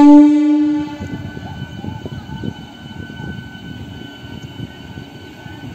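Multiple-unit local train's horn sounding one steady note that cuts off about a second in, followed by the train running along the track with wheel rumble and clatter and a faint steady high whine.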